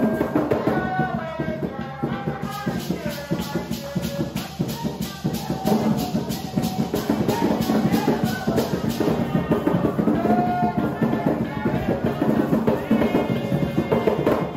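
Live Garifuna drumming: seated players beating large hand drums in a steady rhythm while a group sings. A shaker rattles in an even beat through the middle.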